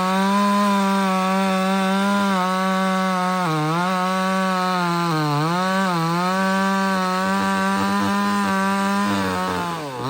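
A 58cc Chinese '5800' two-stroke chainsaw running at high revs while cutting through a red oak log. Its engine note sags briefly a couple of times as it loads up in the cut, then drops sharply near the end before picking back up.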